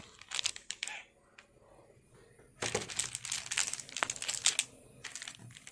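Glossy chocolate-bar wrapper crinkling as it is torn open and peeled off a milk chocolate bar. A little crinkling comes in the first second, then a louder stretch from about two and a half seconds.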